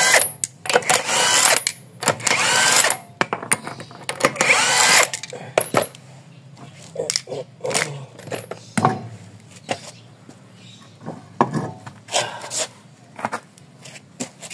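Impact wrench running in short loud bursts as it spins off a wheel's lug nuts, four bursts in the first five seconds. Then scattered clicks and knocks as the loosened wheel is taken off the hub.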